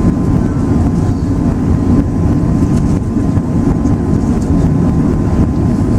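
Steady low rumble of airflow and engines inside the passenger cabin of an Airbus A380 in flight, with a faint steady high tone running through it.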